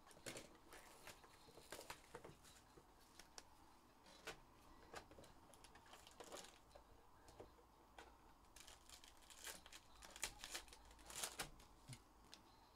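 Faint crinkling and tearing as a Panini Playbook football hobby box and its pack wrapper are opened and the cards handled. It comes as scattered short crackles, busiest about nine to eleven seconds in.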